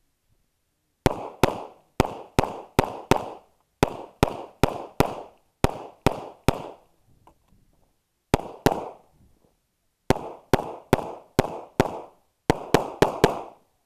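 A .40-calibre competition pistol fired rapidly in strings of shots, often in quick pairs, about twenty-five shots in all, each with a short echo. Firing stops for nearly two seconds about halfway, with only faint clicks, then resumes and speeds up near the end.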